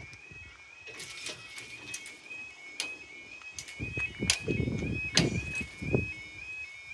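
Level crossing warning alarm sounding, a high tone that rises in quick repeated steps about three times a second, over scattered clicks and knocks and a louder low rumble between about four and six seconds in.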